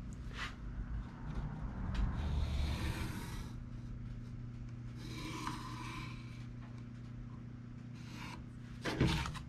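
Pencil scratching along the edge of a cardboard template on a plywood board, tracing its outline in a few strokes, two longer ones about two and five seconds in. A steady low hum runs underneath.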